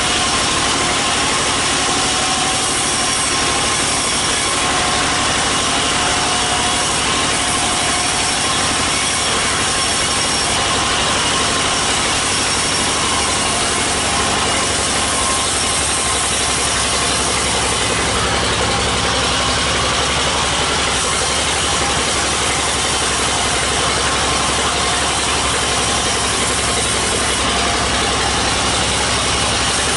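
Sawmill bandsaw and the stationary engine that drives it running steadily while teak is fed through the blade; the low part of the machine noise shifts about halfway through.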